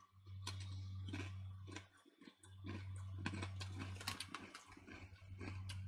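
Kettle-cooked potato crisps crunching as they are chewed: an irregular run of short, sharp crunches over a steady low hum.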